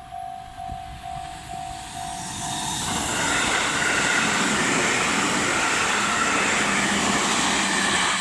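Japanese level-crossing warning bell ringing in a quick, steady repeating ding. About three seconds in, a JR 313 series electric train coupled to a 211 series runs past close by. Its rumble and wheel-on-rail noise rise fast and drown out the bell until near the end.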